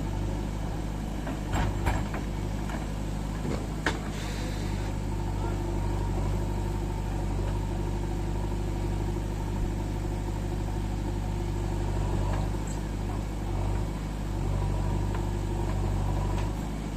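Steady low hum of a running motor, with several sharp clicks and knocks between about one and a half and four seconds in.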